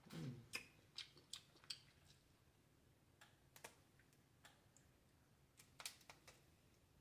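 Faint, scattered sharp clicks of eating blue crab: lips smacking and sucking at the crab in the first couple of seconds, then crab shell cracking and snapping as it is pulled apart by hand.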